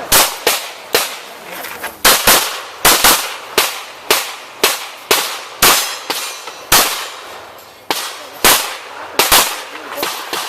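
A .45 ACP Glock 21 pistol firing a rapid, uneven string of about fifteen shots. Some shots come in quick pairs and others after short pauses, each cracking with a brief echo.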